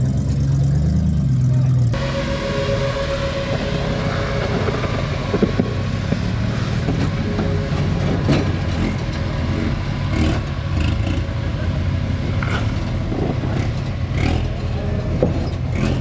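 Off-road rock crawling rig's engine running. For the first two seconds it is a steady low hum, then the sound changes abruptly to a rougher engine noise with scattered sharp knocks.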